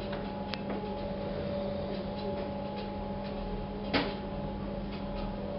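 A steady low hum with a few sharp clicks, the loudest one about four seconds in.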